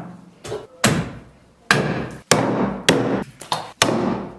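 A meat cleaver chops through a rack of lamb ribs on a wooden tree-stump block. There are five heavy, sharp chops, roughly a second apart or less, each trailing off briefly.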